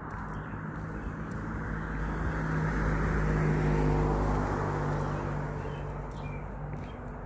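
A car passing by on the street, its engine and tyre noise swelling to a peak about halfway through and then fading away.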